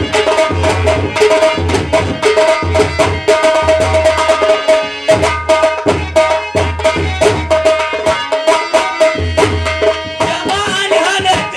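Indian folk music: hand drums playing a fast, busy rhythm with deep thumps about twice a second, under a steady held melody. Near the end a wavering melody line comes in over the drums.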